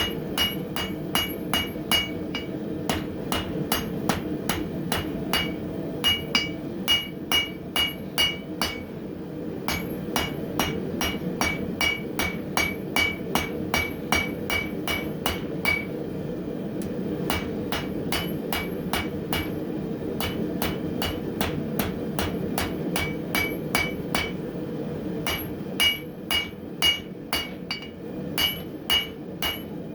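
Blacksmith's hand hammer striking hot spring steel on an anvil, drawing it out in steady runs of about two to three blows a second, each blow ringing with a clear metallic tone; the runs break off briefly three times. Underneath, the steady rushing of the forge.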